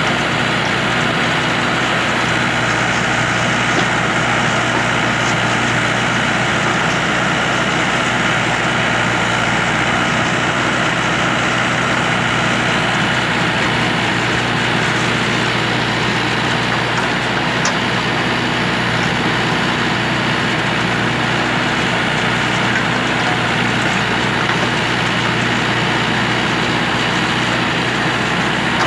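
Mahindra 475 tractor's diesel engine running at a steady speed, powering the hydraulics of a tractor-mounted backhoe as it digs.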